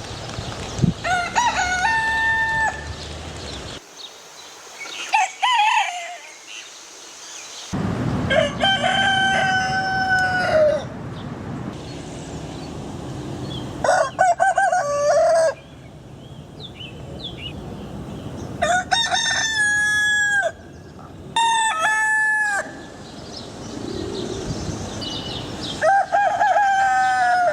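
Roosters crowing: about seven crows in a row, each one to three seconds long, with the background changing abruptly between them.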